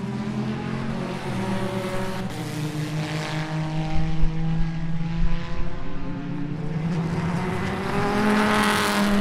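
Race car engines running at speed on the circuit, with one car's engine growing louder as it approaches near the end.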